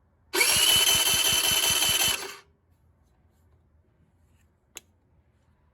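Electric starter cranking a bare 50cc four-stroke scooter engine for about two seconds: a high whine with even beats about five a second. The engine has next to no compression. A single sharp click follows a couple of seconds later.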